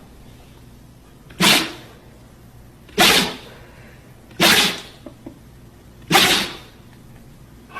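A pet sneezing four times in a row, about one and a half seconds apart, each sneeze a short sharp burst that quickly fades.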